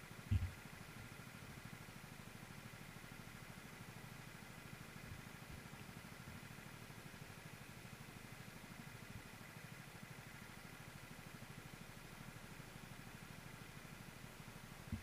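Go-kart engines idling steadily and sounding muffled, with a single knock about half a second in.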